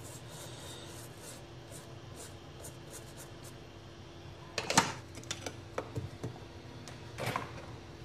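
Brush scrubbing a water-damaged phone circuit board: short scratchy scrapes and clicks start about four and a half seconds in and come again near the end, over a faint steady hum.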